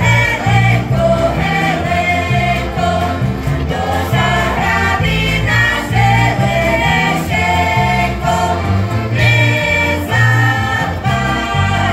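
Slovak folk band playing a lively song on several heligónkas (diatonic button accordions) with guitars, voices singing together over it. A bass line steps from note to note under the accordion chords.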